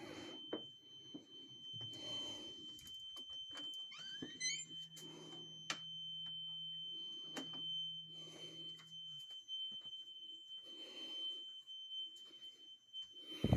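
Carbon monoxide alarm giving one constant, unbroken high-pitched tone.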